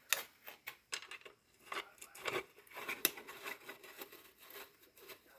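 Scattered light clicks and metal taps from hand work with tools and parts on a small vintage outboard's recoil starter, several irregular ticks a second.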